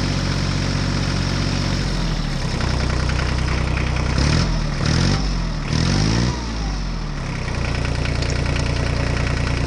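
Small motor of a homemade mini tractor running, its pitch rising and falling several times in the middle with a few louder surges, then settling back to a steady hum.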